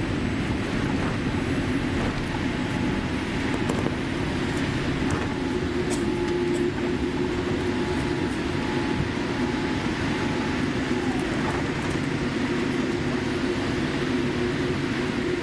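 Steady cabin noise inside a Boeing 787 rolling out on the runway after landing: the rumble of the engines and the wheels on the tarmac, with a few faint clicks.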